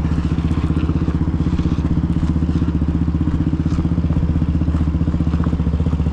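Single-cylinder dirt bike engine idling steadily at an even, unchanging pitch, with faint scattered clicks over it.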